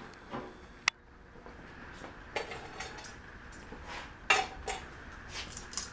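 Irregular metallic clinks and clanks of tools and hardware as seat springs are bolted onto a lawn tractor's seat deck, with a sharp click about a second in and the loudest clank a little past four seconds.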